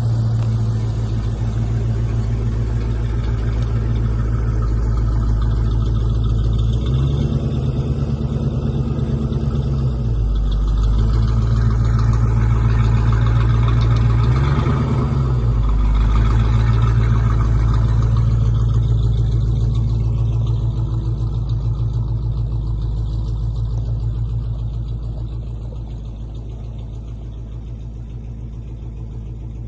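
Bulldozer's diesel engine running steadily under work. It revs up twice, for a few seconds about a quarter of the way in and again briefly around the middle, then eases off and sounds a little quieter near the end.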